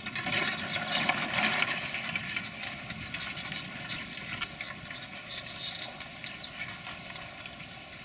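Mounted reversible mouldboard plough cutting and turning grass sod, with crackling soil and irregular clicks and knocks of clods and stones against the bodies, loudest in the first couple of seconds. A tractor engine runs underneath.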